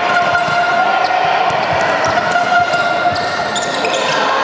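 Basketball game in play in a sports hall: a basketball bouncing on the court floor and players' shoes moving, with voices calling across the hall.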